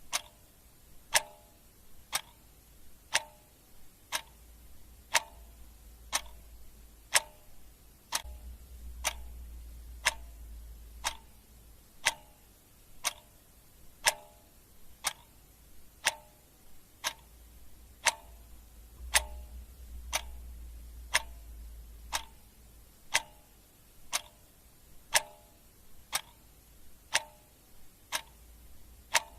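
Clock ticking steadily, about one tick a second, each tick a sharp click with a short ring. A faint low rumble swells twice underneath.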